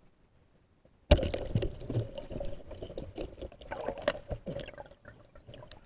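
Water sloshing and gurgling close to the microphone, starting suddenly about a second in, with many small clicks and knocks through it.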